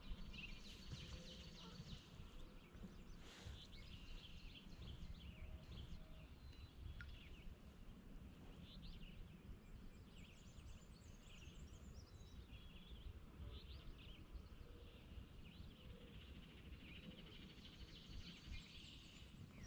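Faint birdsong from several small birds, with short chirps and trills throughout, over a low steady rumble.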